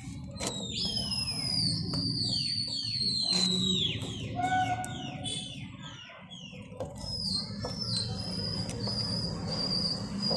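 A run of high whistles, each falling in pitch, come one after another in quick succession through the first half. They are followed by a steady, slightly wavering high whistle held from about seven seconds in to the end. A low hum and a few faint clicks sit underneath.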